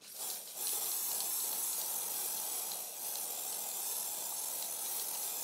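Aerosol can of WWS acrylic static grass layering spray hissing in one long, steady spray over the static grass, with a brief break about half a second in.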